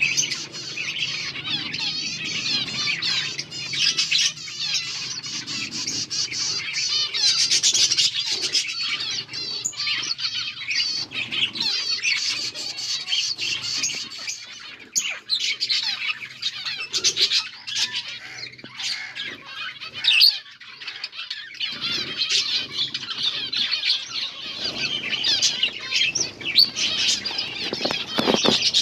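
A group of pet finches chirping continuously in many overlapping high calls, with scattered short clicks and one brief louder burst about twenty seconds in.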